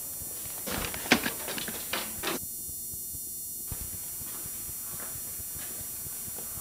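Footsteps and a few sharp knocks on a hard floor, loudest about a second in, over a steady tape hiss. The sound briefly drops out in the middle.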